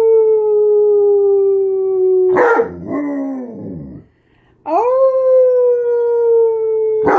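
A person imitating a wolf howl. Two long, steady 'awoo' howls, each about three seconds long and sagging slightly in pitch, with a short rougher break between them.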